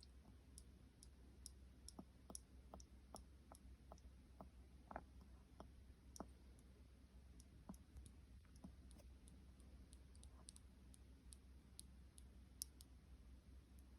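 Near silence: faint, irregular clicks over a steady low hum, with a short run of about three clicks a second around two seconds in.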